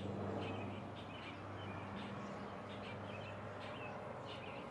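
Birds chirping outdoors: short calls repeating every second or so, over a steady low hum.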